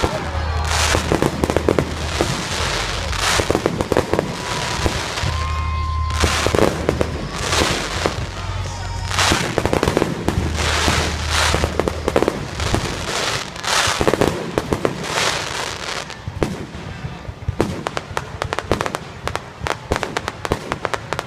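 Fireworks going off: a series of sharp bangs, each trailing off in crackle, then a dense run of rapid crackling in the last few seconds.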